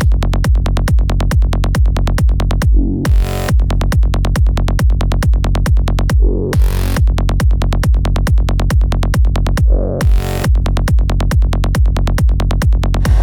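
Psychedelic trance music: a steady, fast kick drum and bass beat, broken by short sweeping fills about every three and a half seconds.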